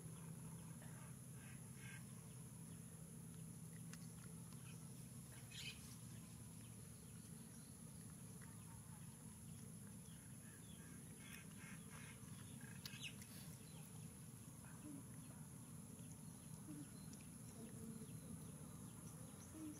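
Near silence: faint outdoor background with a few brief, quiet animal calls, about a second in, around six seconds and again around twelve seconds.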